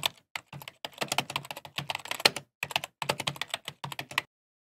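Keyboard-typing sound effect: a fast, irregular run of key clicks that stops about four seconds in.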